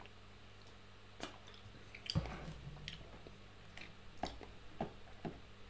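Faint swallowing and mouth sounds of a person drinking from a bottle, with a few small scattered clicks and a soft low knock about two seconds in.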